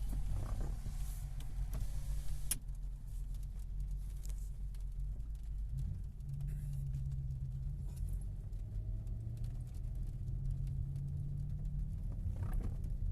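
Car driving, a steady low rumble of engine and road noise, with one sharp click about two and a half seconds in.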